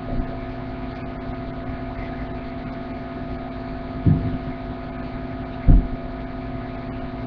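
Steady electrical hum with a faint hiss picked up by the recording microphone. Two short sounds break in about four seconds and six seconds in, the second a louder low bump.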